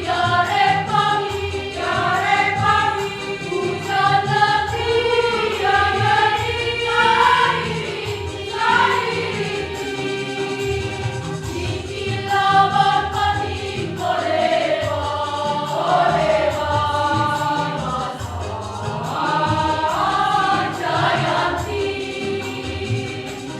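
A choir singing in parts: upper voices move through phrases while a long note is held steadily beneath them.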